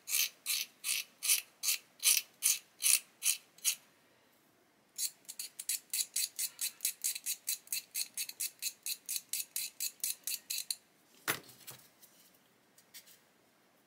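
Scalpel blade scraping a small model-kit part in short, rhythmic strokes, about two to three a second, then after a brief pause faster at about four to five a second, shaving material away so the part will fit. A single knock comes about eleven seconds in.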